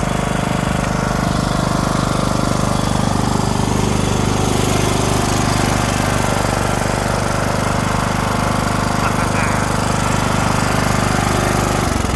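Kohler engine of a Huskee riding lawn tractor running steadily, cranking and starting now that its no-crank, no-start fault has been repaired.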